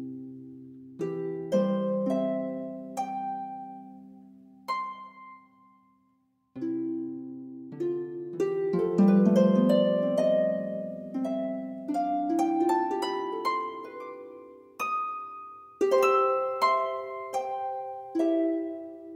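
Background music of a harp: single plucked notes that ring and fade, a brief pause about six seconds in, then a quicker run of climbing notes.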